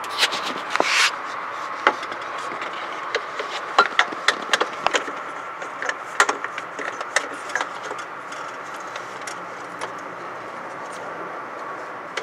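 Scattered light clicks and knocks of a strap wrench and hands bumping against radiator hoses and the plastic fan shroud while reaching into an engine bay, over a steady faint background hum.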